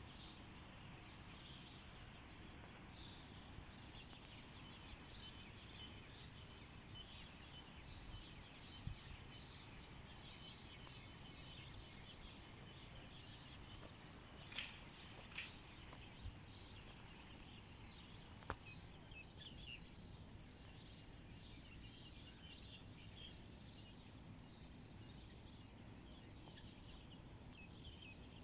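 Faint outdoor ambience with small birds chirping on and off throughout, and a few light knocks or clicks now and then.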